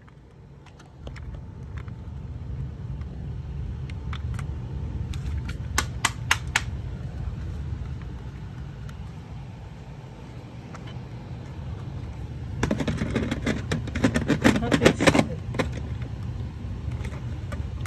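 Clicks and rattles of a plastic smoke detector being handled over a steady low rumble: a few sharp clicks about five to six seconds in and a longer patch of rattling near the end. The alarm itself gives no beeps, having stopped after one round of its three-beep code; the owner thinks it has died.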